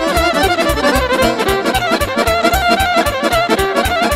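Romanian folk party music (muzică de petrecere) in an instrumental passage between sung verses. A fast, ornamented lead melody runs over a quick, even bass-and-chord beat.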